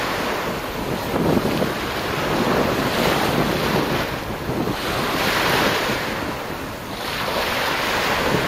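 Small waves breaking and washing up a gravelly sand beach, rising and falling in surges a few seconds apart, with wind buffeting the microphone.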